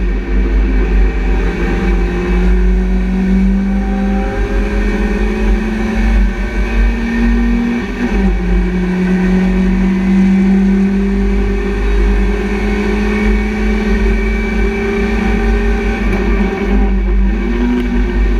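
BMW Compact Cup race car's engine heard from inside the cabin under hard acceleration, its pitch climbing steadily with an upshift about eight seconds in and a brief lift near the end, over a heavy low rumble of road and wind noise.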